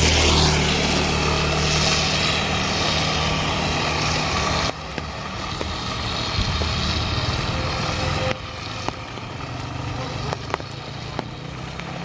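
A motor vehicle's engine running close by with a low steady hum, under a loud hiss of rain and wet road. The hiss drops off suddenly about halfway through and again about two-thirds in, leaving scattered sharp ticks.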